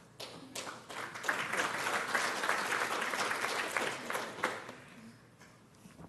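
Audience applauding: a round of many hands clapping that swells over the first second, holds, and dies away about five seconds in.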